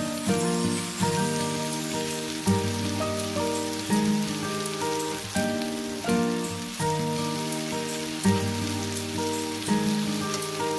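Slow instrumental music, chords and single notes that are struck and then fade, over a steady rain-like hiss.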